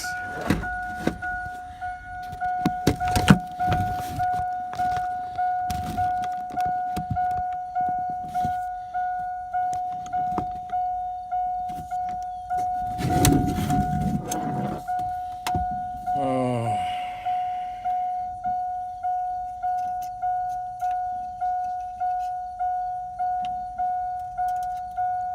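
A truck's warning chime dings steadily, about one and a half times a second. Clicks and knocks of hands and tools at the dash come through it, with a short sound falling in pitch about two-thirds of the way in.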